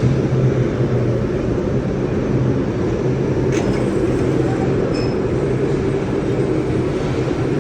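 Ladle refining furnace at work: a loud, steady industrial rumble with a deep hum. Two short sharp clicks come about halfway through.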